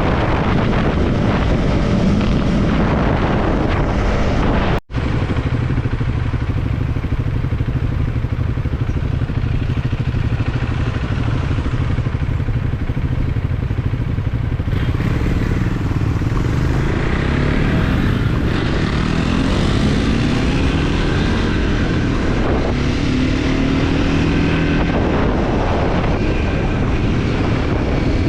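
Triumph Scrambler 400X's 398 cc single-cylinder engine running under way, with road and wind noise. About five seconds in the sound cuts out for an instant. In the second half the engine pitch climbs repeatedly as the bike accelerates.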